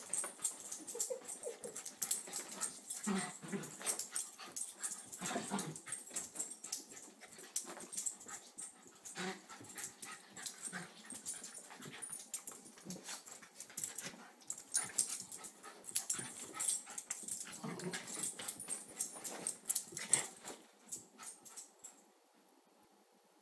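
A dog at play, making short grunting and snuffling noises over irregular scratchy scuffling, stopping shortly before the end.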